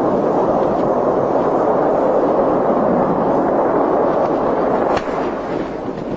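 Loud, steady rumbling noise after the Proton-M rocket's explosion, an even roar without any distinct tone, dropping somewhat in level about five seconds in.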